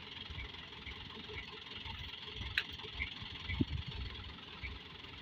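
Diesel engine of a light dump truck idling with a steady low rumble, with one sharp click about halfway through.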